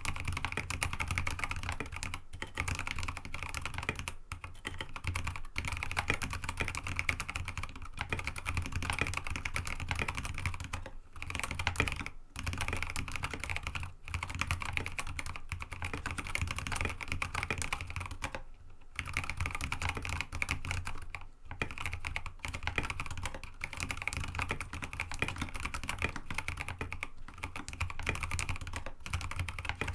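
Fast, continuous typing on a mechanical keyboard with Kailh Box Ancient Gray tactile switches and MA-profile keycaps on an aluminium plate, a dense stream of key clacks with a few brief pauses.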